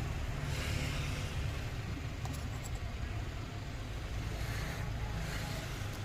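Steady low background rumble with a few faint small clicks about two to three seconds in, from a precision screwdriver working a screw on an opened iPhone 7 Plus's internal bracket.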